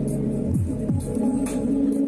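Music for a street dance performance: steady sustained notes, with two falling low swoops about half a second and a second in, over light high ticks.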